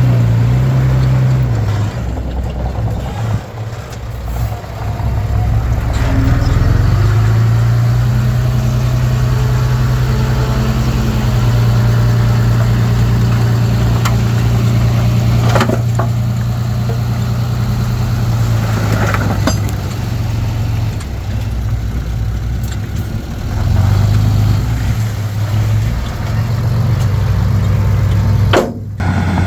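Komatsu D31P bulldozer's diesel engine running, its pitch dipping a few seconds in and then rising and holding steady. A couple of sharp knocks come about halfway through, and the sound drops out briefly near the end.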